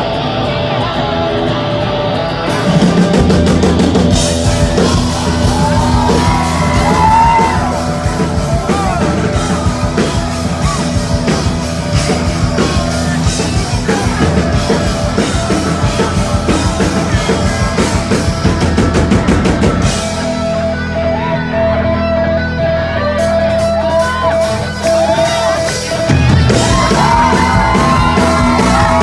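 Live rock band playing loud: electric guitars, bass and drum kit. About twenty seconds in the cymbals drop out and a held note carries a lighter passage, then the full band comes back in about six seconds later.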